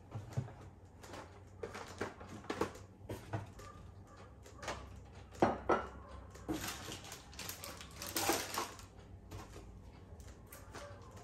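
Groceries being unpacked onto a kitchen counter: boxes, a glass bottle and packets set down with a string of light knocks and clunks, the loudest a little past five seconds in. Plastic packaging rustles for a couple of seconds in the second half.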